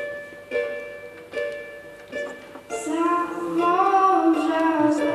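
Ukulele chords strummed one at a time, about a second apart, then from about halfway a young woman singing a long, slow phrase over the ukulele accompaniment.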